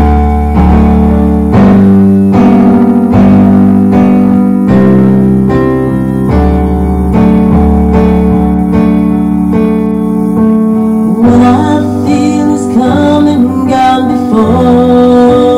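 Roland electronic keyboard playing piano chords, one about every second, with a woman's voice singing over it from about eleven seconds in. The recording is loud and somewhat distorted.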